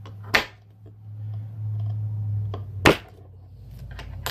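Two sharp clicks, about two and a half seconds apart with the second the louder, as the trigger-group pins are pushed out of a paintball marker's receiver. A steady low hum runs underneath.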